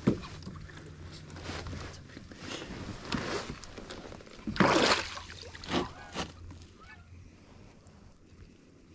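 Water splashing and sloshing in several separate bursts, the loudest about halfway through, as a hooked fish thrashes at the surface beside a kayak while being reeled in to the net.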